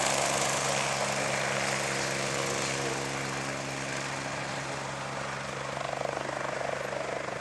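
AgustaWestland AW109 twin-turbine helicopter running on the ground with its rotor turning as it taxis: a steady turbine whine over a rushing hiss from the engines and rotor.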